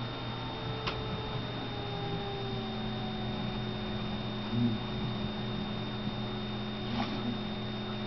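Steady low electrical hum with a faint high whine, one of its tones sliding slowly lower over the first few seconds. A few faint ticks sound over it.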